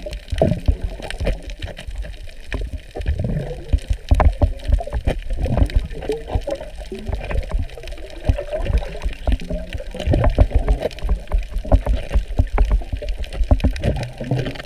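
Muffled underwater sound picked up by a camera moving through the water over a reef: uneven gurgling and sloshing with irregular low knocks and rumbles.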